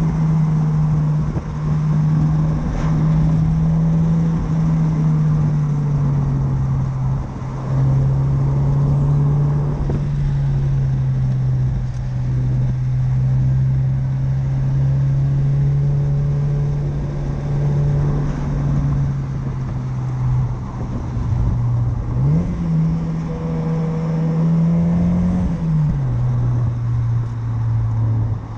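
1993 Mazda MX-5 Miata's 1.6-litre four-cylinder engine, breathing through an aftermarket Cobalt exhaust, pulling steadily while driving. Its note steps down a little about five seconds in, holds steady, then rises sharply near the end and drops back a few seconds later.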